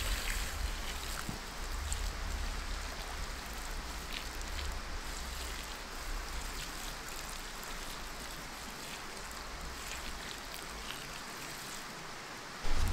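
A thin stream of water poured steadily onto a campfire's hot ashes and charred wood, splashing and spattering as the fire is put out.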